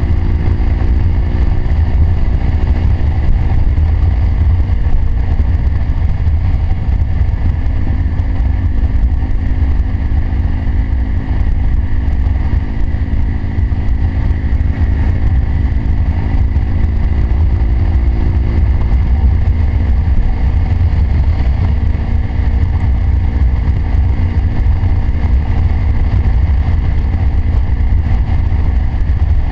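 Motorcycle engine running at a steady cruise, its note drifting slightly up and down, under a heavy low rumble of wind buffeting on the microphone.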